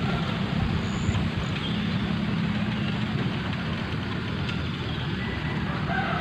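Steady wind rumbling on the microphone, with a few faint high chirps about a second in.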